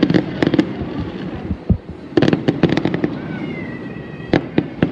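Fireworks going off: clusters of rapid sharp bangs and crackles at the start and again about two seconds in, a deep thud between them, and a single bang near the end. A thin wavering whistle is heard for about a second before that last bang.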